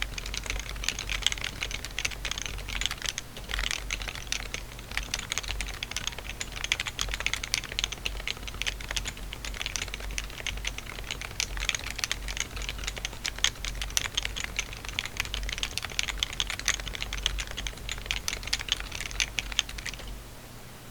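Fast typing on a Topre Realforce 87U keyboard with 45g HHKB rubber domes swapped in and shelf liner in the case: a dense, uneven stream of keystrokes that stops about a second before the end, leaving a faint hiss.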